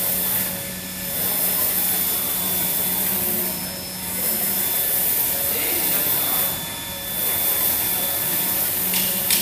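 YD2513-R UV flatbed printer running: a steady whirring hiss over a constant low hum. The level eases and swells again about every three seconds.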